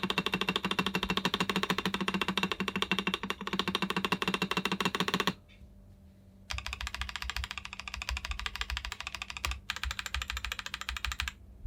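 Fast typing on a Rama Works Kara mechanical keyboard with Krytox-lubed Gazzew Boba U4T tactile switches and EPBT keycaps: a rapid run of keystrokes that stops about five seconds in, picks up again a second later, and pauses briefly once more near the end.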